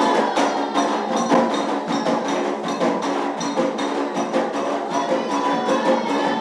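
Candomblé ceremonial music: fast, steady drum and bell percussion with voices singing over it.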